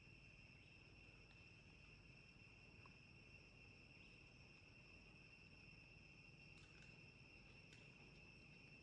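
Faint, steady high-pitched drone of insects, unbroken throughout, with a few faint clicks near the end.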